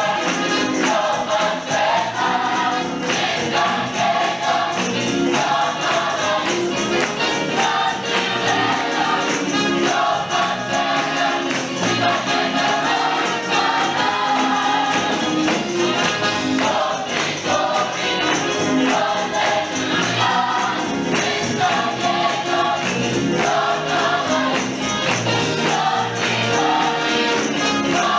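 Gospel youth choir singing in full voice, with a tambourine shaken and struck in a steady beat.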